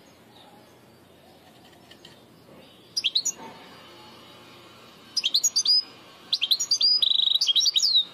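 European goldfinch singing in the Levantine ('Shami') style. It gives three bursts of bright, twittering song starting about three seconds in, and the last burst is the longest, with a rapid buzzy trill near its end.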